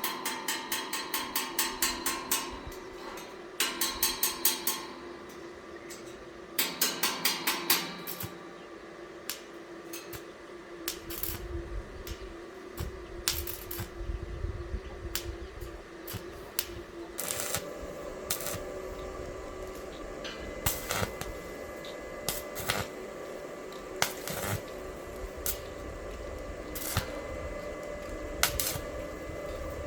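Workshop metalwork sounds: three short bursts of rapid tapping, about ten taps a second, in the first eight seconds, then scattered single knocks and clinks. A low steady machine hum comes in about halfway through.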